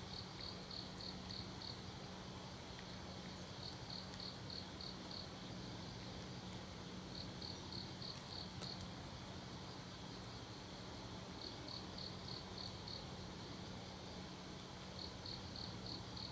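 An insect chirping in runs of about six quick chirps, one run every three to four seconds, over a low steady hum and faint hiss.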